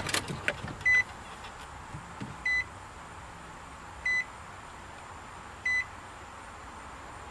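A few light clicks, then four short, high electronic beeps, evenly spaced about a second and a half apart, as the car and its new touchscreen radio power up.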